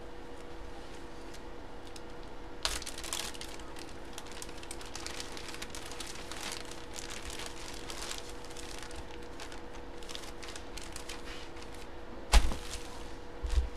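Plastic bag crinkling and rustling as a jersey is handled and drawn out of its packaging, with a loud dull thump near the end and a softer one just after, over a faint steady hum.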